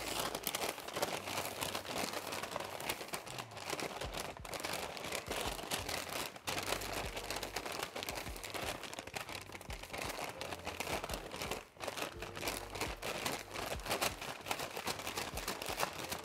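A brown paper bag holding chicken wings and seasoned flour is shaken hard by hand, its paper crinkling and rustling in a rapid, near-continuous run with a few brief pauses. This is the shake-and-bake stage of coating the wings in flour.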